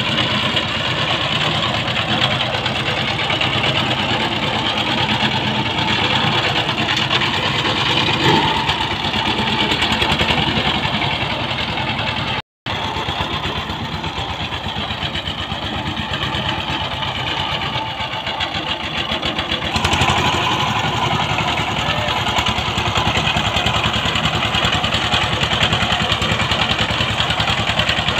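Two-wheel power tiller's single-cylinder diesel engine running steadily with a fast, even firing beat while the machine is worked along. The sound cuts out for an instant about halfway through.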